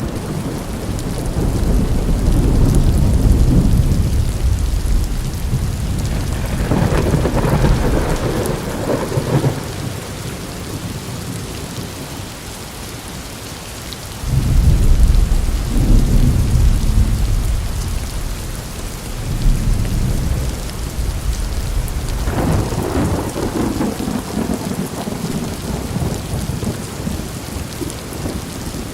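Steady rain falling, with several long rolls of thunder rumbling over it; the loudest roll starts suddenly about halfway through.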